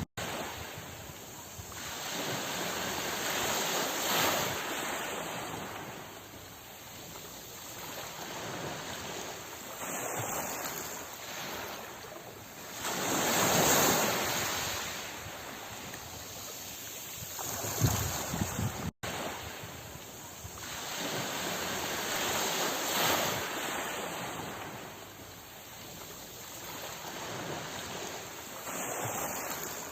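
Sea waves washing ashore, a steady rush that swells and ebbs in slow surges every several seconds, the biggest about halfway through. The sound cuts out for an instant twice, at the start and about two-thirds of the way in.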